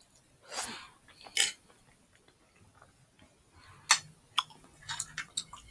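Quiet mouth sounds of a person eating: two short breathy puffs, then a few sharp clicks and smacks from about four seconds in.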